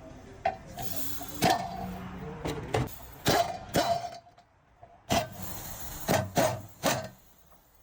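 About ten sharp metal-on-metal hammer blows at uneven intervals, each ringing briefly, with a short pause about halfway through. This is typical of knocking out a car's rear wheel hub and bearing.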